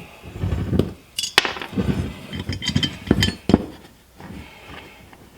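Metal parts of a dead pedal bracket and its hardware clinking and knocking while being handled, as a fastener is worked into a hard-to-reach spot. There are several sharp clinks among rustling handling noise.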